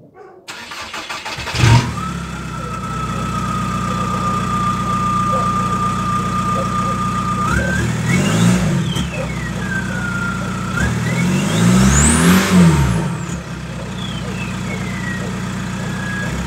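A VW Golf Mk4's 1.9 TDI four-cylinder turbodiesel is started through a straight-piped exhaust: brief cranking, then it catches with a loud bang and settles to idle with a steady high whine. It is then blipped twice, the second time harder, with a high whistle rising and falling with the revs.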